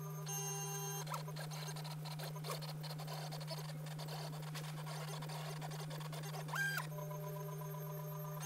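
NEMA 17 stepper motors of a DIY pen plotter moving the pen carriage: steady whining tones on straight runs, a busy scratchy stretch of short back-and-forth strokes while it fills the hatched squares, and a brief rising-then-falling whine about six and a half seconds in as the carriage speeds up and slows down. A steady low hum runs underneath.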